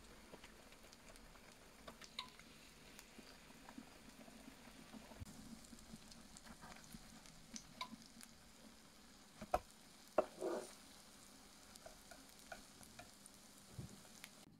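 Zucchini fritters frying in oil in a nonstick pan: a faint sizzle with scattered small crackles and pops. About two-thirds of the way through, two louder knocks as a spatula turns a fritter, followed by a short burst of sizzling.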